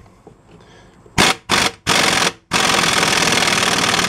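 Pneumatic impact wrench hammering, running down a strut-to-knuckle bolt: three short bursts, then a longer run of about a second and a half that cuts off near the end.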